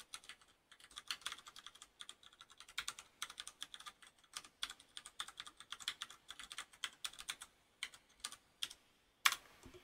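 Typing on a FILCO Majestouch BLACK Tenkeyless mechanical keyboard with Cherry MX Brown switches: quick runs of key clicks broken by short pauses. Near the end comes one louder single keystroke, the Enter key.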